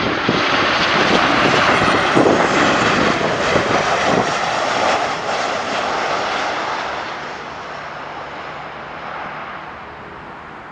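An airliner's engines pass low overhead on the approach to land. A loud rush of engine noise with a falling whine early on grows quieter over the last few seconds as the aircraft moves away.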